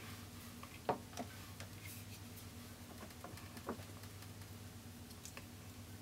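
A few faint clicks and taps of small cosmetic items, such as a setting-spray bottle, being handled, the sharpest about a second in, over a low steady hum.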